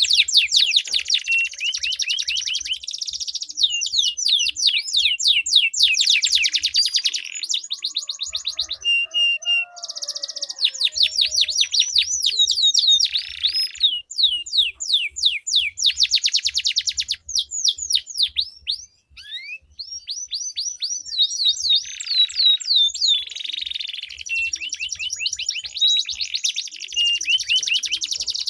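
Domestic canaries singing long rolling trills: fast runs of repeated high notes chained into extended phrases, with a brief lull about two-thirds of the way through.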